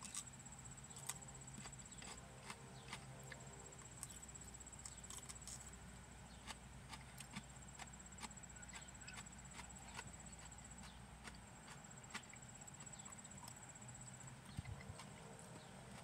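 Faint chewing of a bite of raw yellow fushimi pepper, heard as soft, irregular mouth clicks. Under it runs a steady high-pitched trill and a low hum that stops about two-thirds of the way through.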